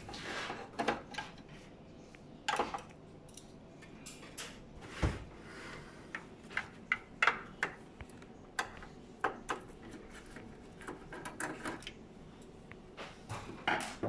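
Irregular small clicks and knocks of a screwdriver working and plastic parts being handled as screws are taken out of a Fuji Xerox DocuPrint CM225 printer's plastic frame, with a duller knock about five seconds in.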